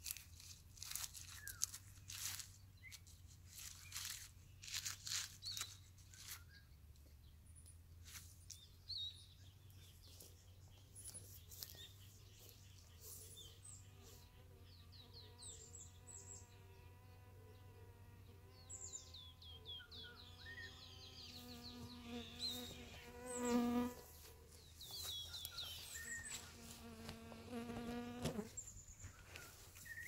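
Rustling and crackling of pine branches being worked by hand for the first few seconds, then a fly or bee buzzing close by for much of the rest, swelling loudest about two-thirds through.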